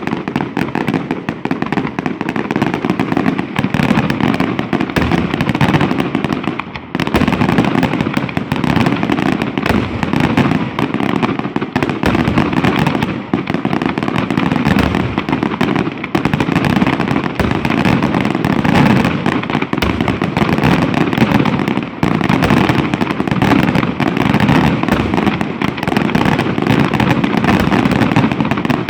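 Fireworks display: a dense, continuous barrage of rapid bangs and crackles, with a brief lull about seven seconds in.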